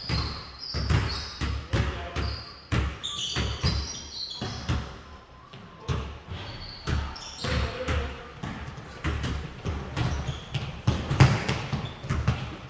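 Basketballs bouncing on a hardwood gym floor, irregular thuds from several balls, echoing in a large gym, with short high squeaks of sneakers on the boards.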